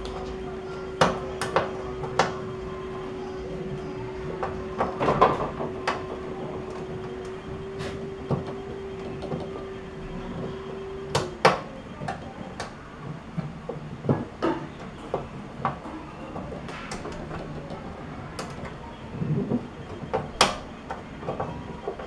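Scattered clicks and knocks of a plastic housing being pushed and worked into place inside a refrigerator compartment, its two clips being fitted into their holes. A steady hum runs underneath and cuts off suddenly about eleven seconds in.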